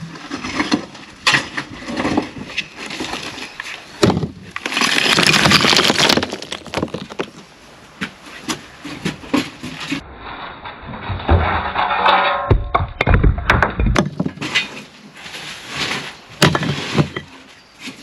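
Broken concrete slab rubble being tipped and thrown into a steel skip: repeated knocks and clatters as chunks land on the pile, with a longer stretch of rubble sliding and scraping about four seconds in.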